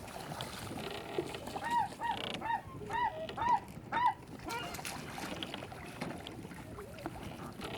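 Seagulls calling: a quick run of about six short, arched yelping calls, starting about two seconds in.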